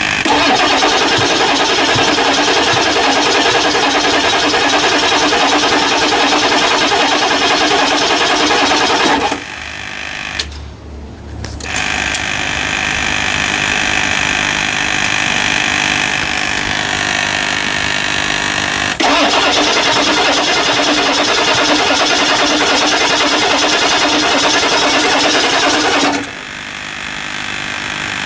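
Starter cranking a 1999 Ford F350's 7.3L Power Stroke V8 turbodiesel without it firing, in two long cranking bursts of about nine and seven seconds with a quieter pause between. This is a hard start after an injector cup change, with the engine having been slightly hydrolocked.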